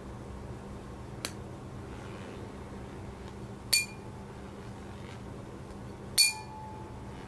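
Metal ear-cleaning tuning fork struck three times: a light tick, then two sharp metallic clinks, each with a brief high ring. After the last one a lower tone lingers for under a second.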